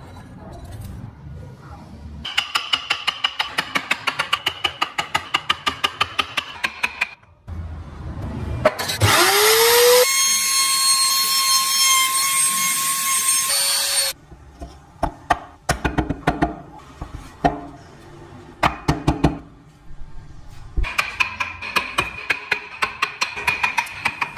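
Handheld trim router spinning up with a rising whine, cutting into wood at a loud steady pitch for about four seconds, then switching off abruptly. Before it come stretches of fast regular clicking, and after it scattered knocks and more fast clicking from hand work on the wood.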